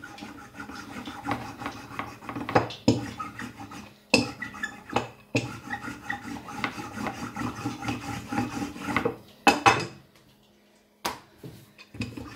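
Wooden rolling pin rolling samosa dough thin on a countertop: a continuous rubbing, rolling sound in back-and-forth strokes, broken by a few sharp knocks. The rolling stops briefly near the end, then starts again.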